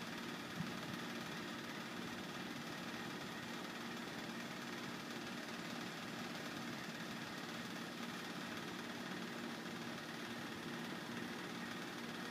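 A steady low mechanical hum over an even background hiss, unchanging throughout.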